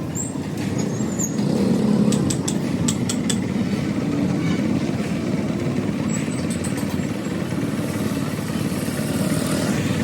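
Steady motor-vehicle rumble, like traffic or a running engine, with a few short sharp clicks about two to three seconds in and again around six and a half seconds.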